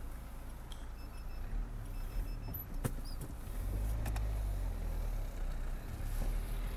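Taxi heard from inside the cabin as it drives off: a low engine and road rumble that grows stronger about halfway through, with a couple of sharp clicks.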